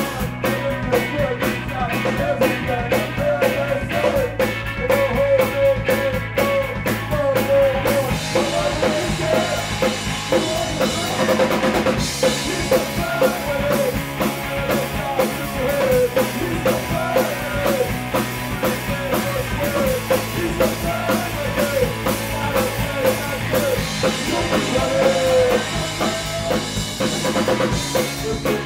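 Live rock band playing loud in a small room: drum kit with steady hits and electric guitar lines over bass.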